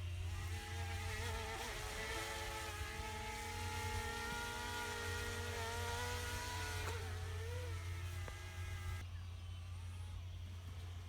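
A small camera drone's propellers whining with a steady, insect-like buzz just after takeoff. Its pitch shifts and glides about seven seconds in, and the whine fades away near nine seconds as the drone flies off.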